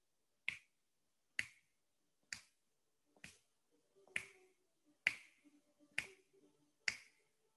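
Finger snaps, eight of them at a steady pace of about one a second, marking time through a held-breath (apnea) hold in a hypopressive exercise.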